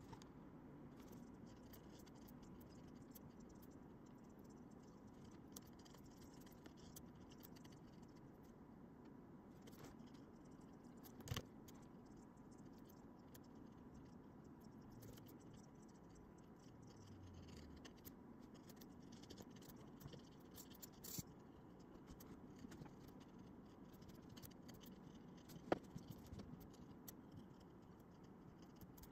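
Faint scratching of a fine-tipped ink pen hatching on a shikishi board, a quick run of small ticks under a low hiss, with a few louder clicks here and there.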